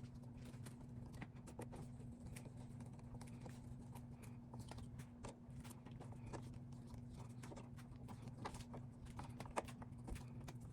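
Faint, scattered clicks and taps of a metal door knob and its latch hardware being handled and fitted on a door, over a steady low hum.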